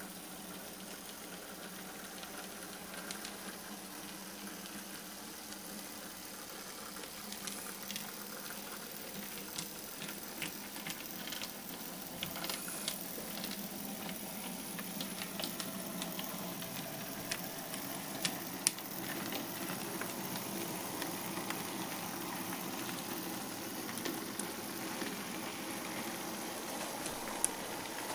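Model Schöma wood-gas locomotive and its log wagons running along the track: a steady hissing running noise with a low hum and scattered small clicks, growing a little louder as the train comes closer.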